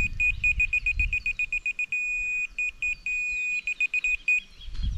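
Laser level receiver on a grade staff beeping rapidly, about eight beeps a second. It holds a steady solid tone twice, for about half a second each time, as it finds the on-grade line of the laser beam. The beeping stops a little before the end.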